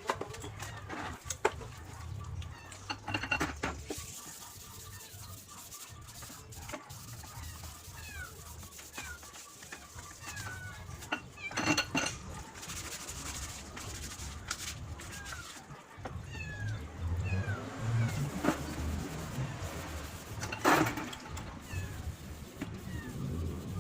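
Occasional sharp metallic clinks and knocks, like tools or small parts being handled and set down, over a low steady background hum, with many short high chirps scattered throughout.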